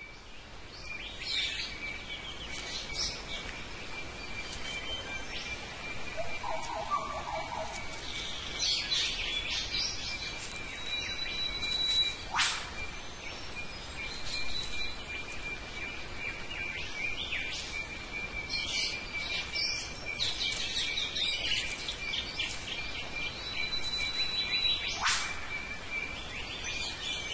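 Forest birdsong: scattered high chirps and whistles over a steady high tone, with two quick downward-sweeping whistles, one about halfway through and one near the end.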